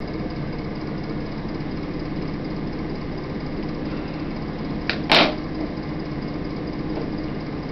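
A steady mechanical hum, with a short click and then a sharp knock about five seconds in.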